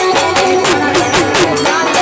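Live Gujarati folk music: harmonium chords held under a fast, steady percussion beat.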